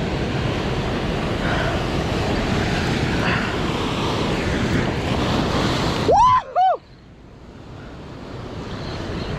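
Surf washing on a beach with wind buffeting the microphone. About six seconds in there are two short, loud cries that rise and fall in pitch, and then the surf sound drops out and slowly builds back up.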